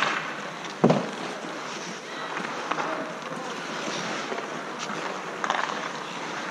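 Outdoor ice hockey play: a steady rushing noise of skates and wind, with scattered clacks of sticks and puck and one loud knock about a second in.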